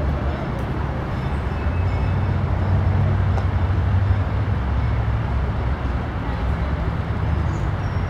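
Steady low rumble of outdoor background noise, with no distinct event standing out.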